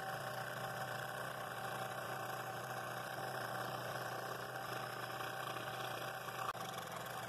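Scroll saw running steadily, its blade cutting a ring from a half-inch poplar bowl blank along the pattern line, with the table tilted for an angled cut.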